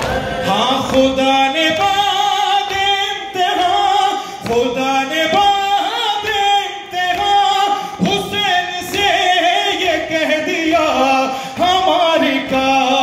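A man singing an Urdu noha, a Shia mourning lament, into a handheld microphone: one continuous melodic chant of held notes and gliding lines.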